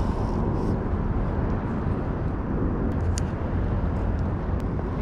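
Steady low rumbling noise of traffic on the road bridge overhead, with a couple of faint clicks.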